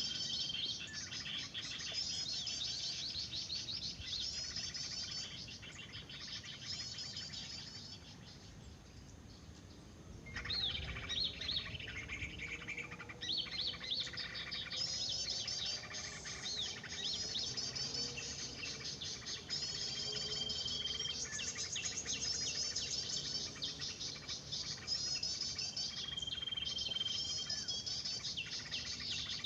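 Small songbirds chirping in fast, repeated twittering phrases, a 'noisy birds' lure recording (suara burung ribut) of mixed small birds played through a speaker to draw birds to lime sticks. The chirping thins out about eight seconds in, then returns with a different burst of calls.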